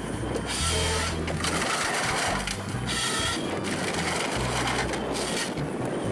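Komatsu 931 forestry harvester working with its C144 harvesting head: the engine runs steadily while the head cuts and crushes wood in three noisy bursts, near one, three and five seconds in.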